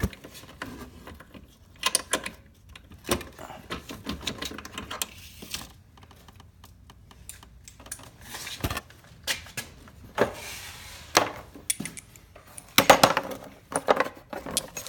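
Hand tools and small metal parts clinking and clanking as they are handled, in irregular scattered knocks and clicks with quieter gaps between.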